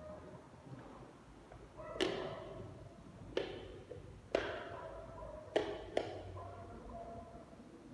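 Footsteps on a polished hard floor in an empty room: five sharp taps, unevenly spaced, each ringing briefly in the bare room.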